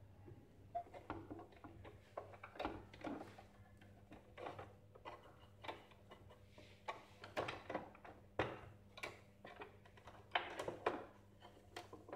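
Black plastic housing parts of a Saeco Incanto coffee machine being handled and pushed into place on its frame: irregular clicks, taps and knocks, several a second at times.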